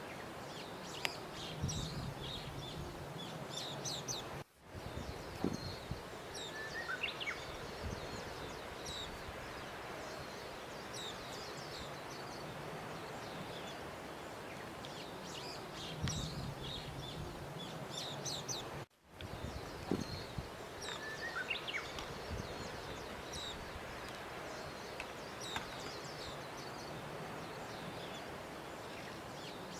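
Birds chirping: scattered short calls over a steady outdoor hiss, with a few low thumps and two brief dropouts in the sound about fourteen seconds apart.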